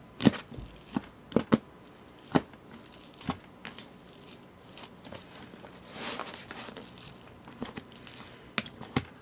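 A spoon mixing bibimbap in a black plastic takeout container: irregular sharp clicks and knocks of the spoon against the container, with moist squishing of rice and toppings, and a softer scraping stretch about six seconds in.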